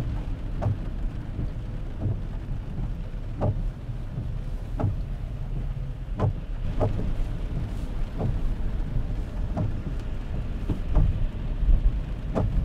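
Car driving through heavy rain: rain falling on the car over a steady low road and engine rumble, with the windscreen wipers sweeping about every second and a half.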